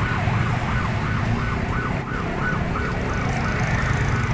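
Railway level-crossing warning alarm sounding a continuous electronic warble, its pitch sliding up and down about three times a second, over the low running of motorcycle engines at the crossing.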